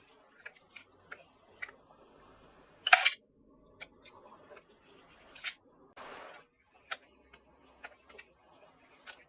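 Light clicks and taps of computer parts being handled during assembly, with one louder clack about three seconds in and a short scrape a few seconds later.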